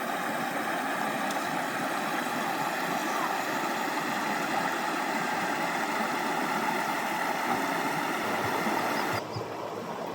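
Mountain river water rushing in a steady, even wash. About nine seconds in it changes abruptly to a quieter, duller flow.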